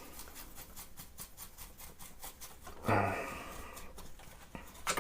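Faint scrubbing of a brush working solvent into the grimy front of a vintage sewing machine, a rapid run of light scratches and ticks. A short breathy vocal sound about three seconds in.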